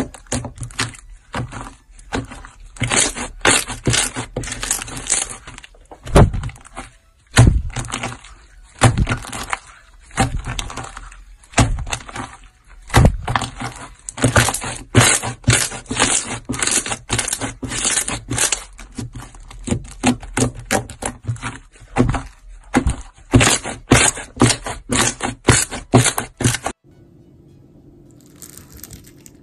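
Hands squeezing, pressing and folding a thick slime, a rapid, uneven string of short, sharp squelches and pops. About three seconds before the end the sound switches to fainter pressing sounds over a steady low hum.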